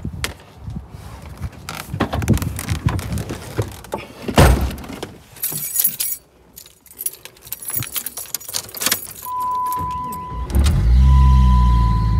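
Keys jangling and rustling in a Jeep Grand Cherokee ZJ's cabin, with a thump about four seconds in. About nine seconds in a steady electronic warning chime sounds, and a second later the engine starts and keeps running under the chime.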